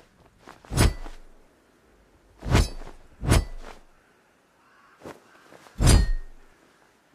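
Cutlass sword sound effect: four sharp metal blade strikes, irregularly spaced, each with a brief metallic ring. Two fainter ticks come just before the first and last strikes.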